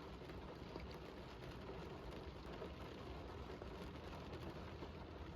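Steady rain falling: a soft, even hiss with no distinct events.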